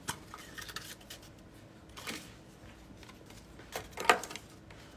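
A plastic capsule egg clicks open, followed by a folded paper slip rustling in a few short bursts as it is unfolded, about two seconds in and near the end.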